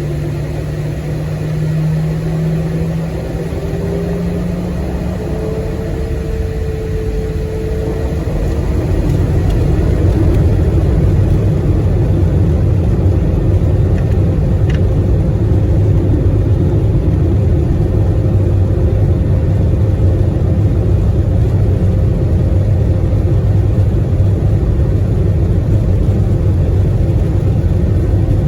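Boeing 737-700 jet engines heard from inside the cabin: a rising whine over the first several seconds as they spool up, then a steady low rumble.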